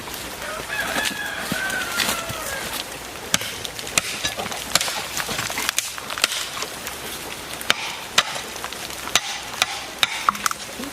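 A rooster crows once near the start, over a run of sharp knocks that repeat about every half-second to a second.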